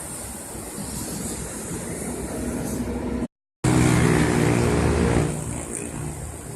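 Highway road noise, then, after a brief silent cut, a truck passing close with a loud engine drone that fades off near the end.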